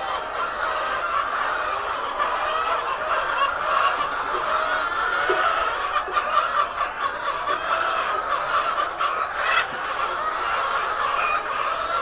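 A large flock of laying hens clucking and squawking continuously, many birds calling over one another in a dense, steady chatter.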